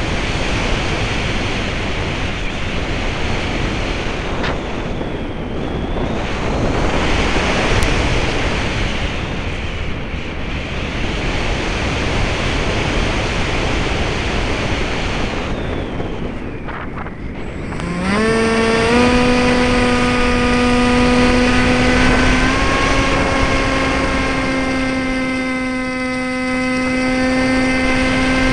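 Wind rushing over the microphone of a camera mounted on an RC model plane in flight. About two-thirds of the way through, the plane's motor and propeller come in as a steady hum that rises quickly, then steps up in pitch a couple of times.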